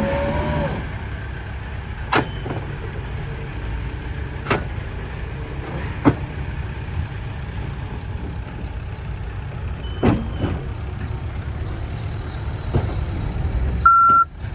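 Case 590 Super N backhoe's diesel engine running steadily, with a few sharp metal clunks from the machine working. A reversing alarm starts beeping near the end.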